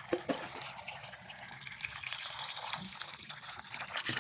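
Water pouring into a metal pot of cut potato sticks, filling it to parboil them for fries, with a couple of light knocks just at the start.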